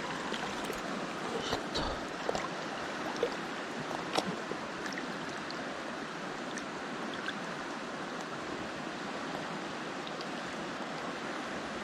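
Mountain stream water rushing steadily over rocks, with a few light clicks in the first few seconds.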